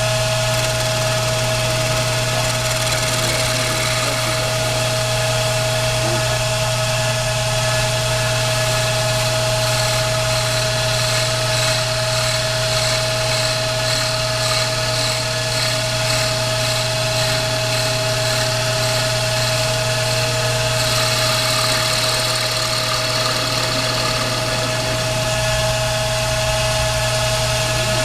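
Lathe motor running steadily with a constant whine and hum while a tool cuts a wooden pipe block to shape the bowl; a higher cutting hiss grows stronger about ten seconds in and again after about twenty seconds.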